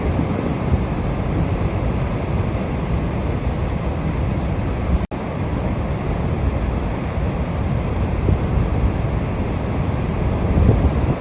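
Steady rush of Niagara Falls with wind buffeting the microphone; the sound cuts out for an instant about five seconds in.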